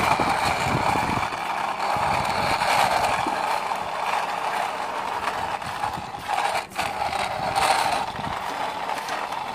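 Toy car's plastic gears whirring and its wheels rolling on concrete as the car is pushed along by hand, a steady whir with one brief break about two-thirds of the way through.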